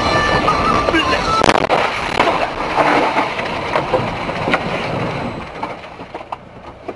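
Noisy road sound with a sharp bang about one and a half seconds in, followed by scattered knocks and clatter that die away near the end.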